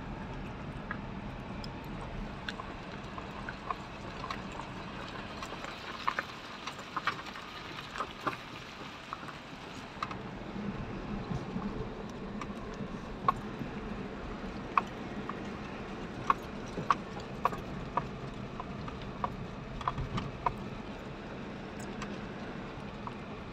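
Angora goats' hooves clicking and knocking irregularly on hard ground, many sharp clicks at uneven intervals over a steady low background noise.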